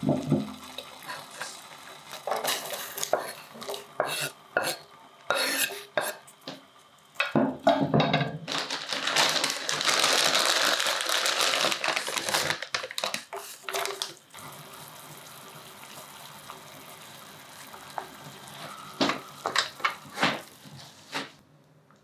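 A stainless steel saucepan and utensils clatter and knock while sliced carrots go into a pot of simmering water, with a few seconds of loud rushing noise about halfway through. A quieter steady hiss follows, with a few clicks near the end.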